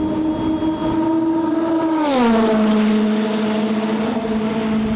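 Turbocharged race car passing at speed: its engine note holds steady as it approaches, then drops in pitch as it goes by about two seconds in, loudest at that moment.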